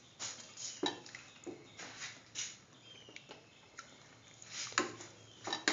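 A spoon stirring chunks of Hausa potato and onion through a watery broth in a steel pan, giving a series of irregular short scrapes and sloshes with the odd brief squeak.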